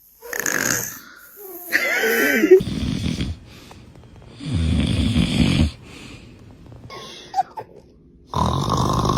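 Snoring: three long snores of about a second each, with a short high-pitched vocal sound just before the first.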